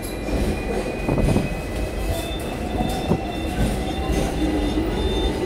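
Hong Kong double-decker tram running along street rails, heard from its upper deck: a steady low rumble of wheels on track, with a couple of short knocks and a faint whine that rises slowly from about two seconds in.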